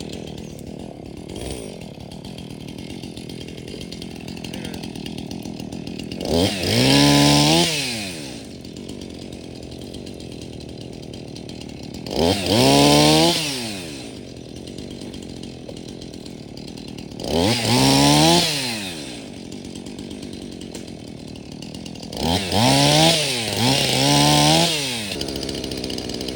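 Two-stroke chainsaw idling, revved up to full throttle four times for cuts through storm-broken branches. Each rev rises sharply in pitch and drops back to idle after about two seconds, and the last one comes as two revs in quick succession.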